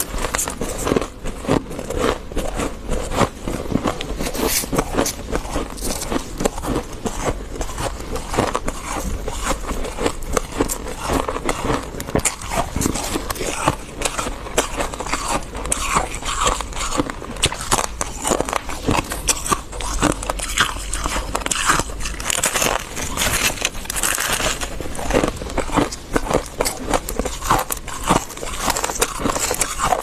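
Close-miked biting and chewing of chunks of freezer frost: a dense, continuous run of crunching and crackling with no real pauses.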